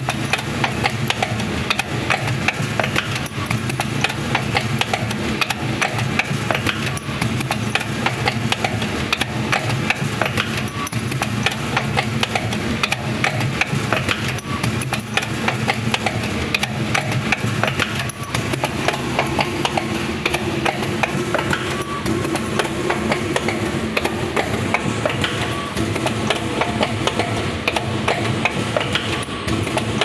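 Wire-forming machinery running steadily, a continuous stream of rapid clicking and knocking over a steady low hum.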